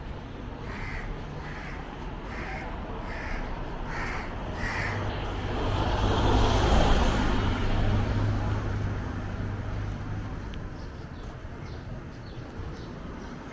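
A crow cawing repeatedly, about eight evenly spaced caws, and then a motor vehicle passing close by, swelling to its loudest about halfway through and fading away.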